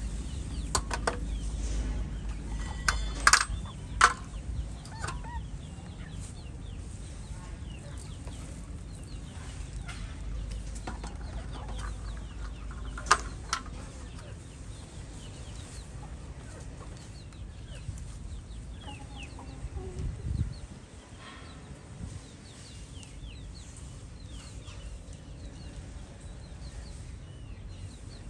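Chickens clucking in the background, with a few sharp knocks, the loudest about three, four and thirteen seconds in.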